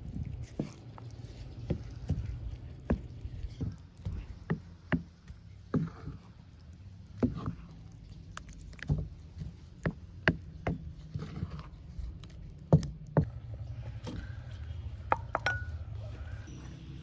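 Wooden spoon stirring thick yogurt and chopped green onions in a bowl, with irregular sharp clicks of the spoon knocking the bowl about one or two times a second, over a steady low background rumble.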